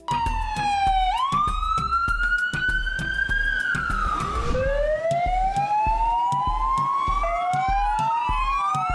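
Emergency vehicle sirens wailing, slowly rising and falling in pitch, with two sirens overlapping and crossing in pitch near the end, over a steady background music beat.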